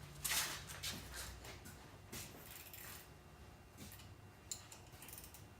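Faint handling noise: a few light clicks and brushing rustles, with a low hum that fades out about a second in.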